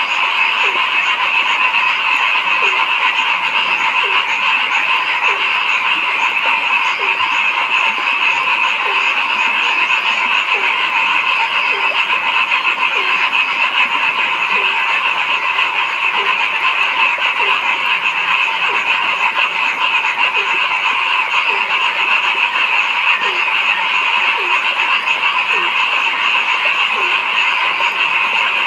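A dense, steady chorus of calling frogs, with one lower call repeating about once a second.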